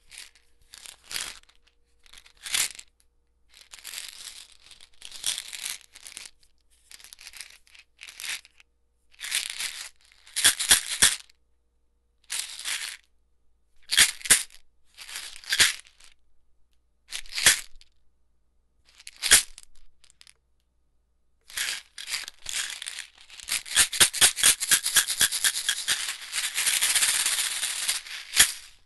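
Pills rattling inside a prescription pill bottle as it is shaken, first in short separate shakes with pauses between them, then shaken fast and almost without a break for the last five seconds or so.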